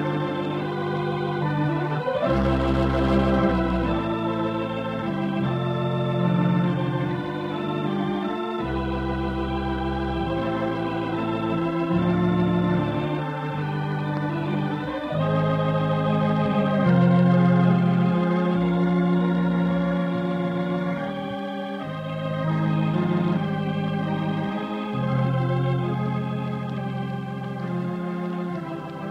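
Organ playing a radio program's closing theme: sustained chords that change every second or two over a low bass line.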